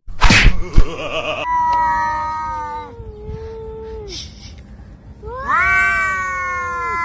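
A couple of sharp thumps at the start, then a cat yowling in two long, drawn-out wails. The first wail slowly falls in pitch; the second rises, then holds. It is a threat caterwaul between two cats facing each other at close quarters.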